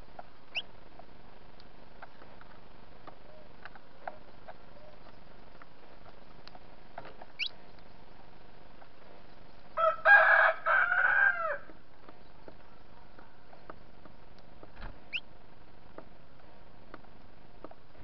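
A rooster crowing once, about ten seconds in, a loud call of about a second and a half in several linked parts. Around it, a few short high chirps of small birds and faint scattered ticks.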